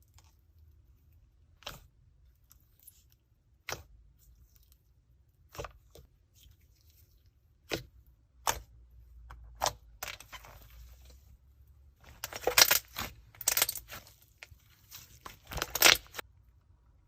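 Slime being handled and pressed: scattered sharp pops and clicks about every second or two, then a stretch of fine crackling that gives way to loud, dense crackling bursts near the end.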